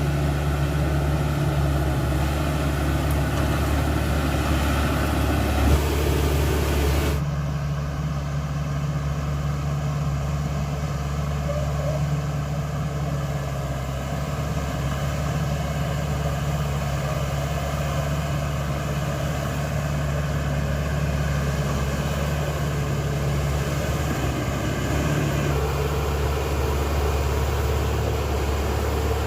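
Caterpillar D5K XL bulldozer's diesel engine running steadily. About seven seconds in, the higher hiss and rattle drops away suddenly and the engine carries on a little quieter and smoother.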